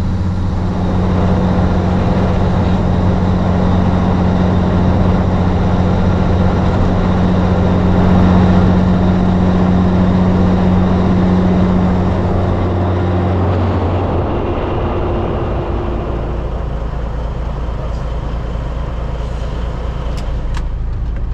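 Peterbilt 362 cabover's Caterpillar 3406B diesel running steadily at road speed, a constant engine drone over road noise. About 14 seconds in the steady engine note drops away, leaving a lower, even rumble, with a couple of faint clicks near the end.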